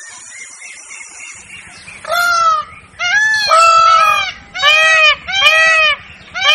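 Peacock (Indian peafowl) calling: about two seconds in, a run of six loud calls in quick succession, each a short wail that rises and falls in pitch.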